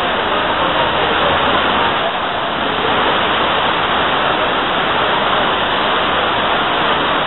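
Heavy tropical rain pouring down steadily: a loud, even hiss with no let-up.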